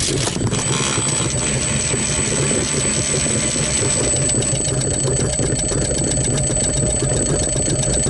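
Brief clatter of a quadcopter hitting the ground, then its brushless motors keep running with a steady low hum as it lies there after the crash. A fast ticking joins about halfway through.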